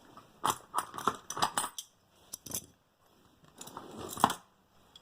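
Metal hand tools clinking and clattering as they are taken out of a tool bag and set down. A string of sharp clicks in the first half, then rustling with one loud clack near the end.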